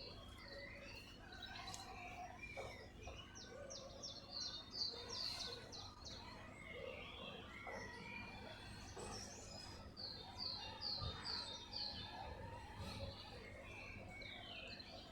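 Wild birds chirping and singing, with several quick runs of repeated short high notes, over faint outdoor background noise.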